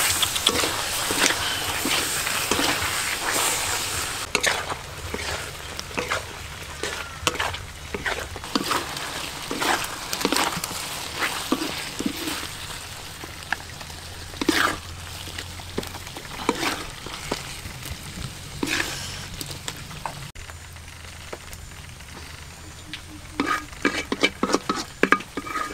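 Peeled boiled eggs sizzling in chili sauce in a hot pan, with a wooden spatula scraping and knocking as they are stirred. The sizzle is loudest at first and thins out about two-thirds of the way through. A few sharp clicks come near the end.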